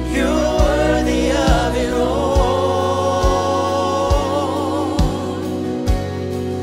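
Live contemporary worship music: a singer holds long notes with vibrato over the band, which keeps a steady beat about once a second.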